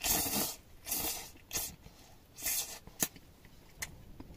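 A person slurping rice noodles from a pot: about four short, hissing slurps in quick succession, then a couple of sharp clicks near the end.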